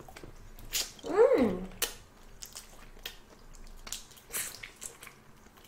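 Whole cooked shrimp being peeled and eaten: scattered sharp clicks and cracks of shell and chewing. About a second in, one short pitched sound, voice-like, rises and then falls.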